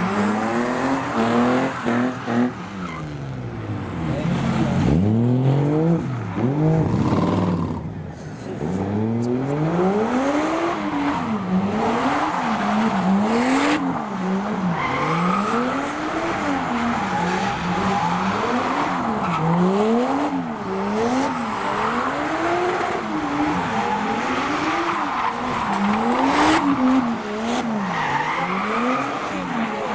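A car engine being revved up and down hard and rhythmically, about once every second and a half, while the car drifts, with tyres squealing and skidding underneath. Early on the engine note sweeps down and back up as the car swings past.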